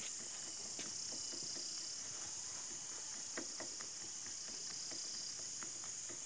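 Steady high chirring of insects, most likely crickets, with a few faint clicks as a screwdriver tightens the brake lever's pivot screw.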